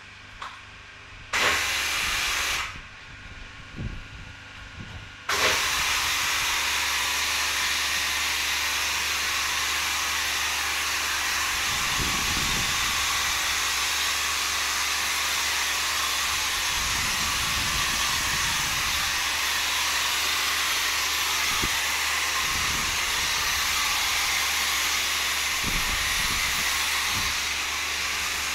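Wax being sprayed onto a car from a car-wash spray lance. A short hiss comes about a second in, then after a pause a long, steady hiss of continuous spraying.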